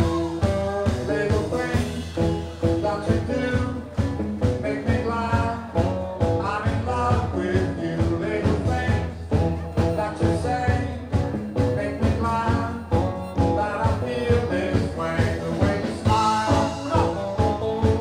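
Live rock band playing with electric guitars and drums over a steady beat, and a harmonica played into the microphone over the band, its held notes bending in pitch.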